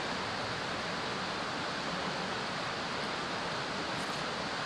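Steady rushing of a stream flowing over rocks.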